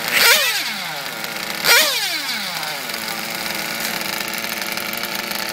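Radio-controlled drag cars speeding away down the strip: two sudden high whines, one at the start and one about a second and a half later. Each drops quickly in pitch as the car goes off. A steady low hum runs underneath.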